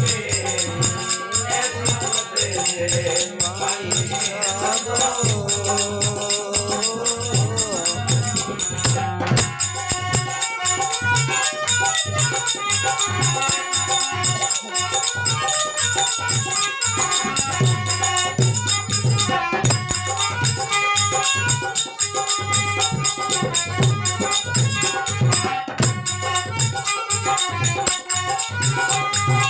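Rajasthani folk devotional music in an instrumental passage: a steady drum beat with bright rattling hand percussion, and a wavering held melody line over the first several seconds.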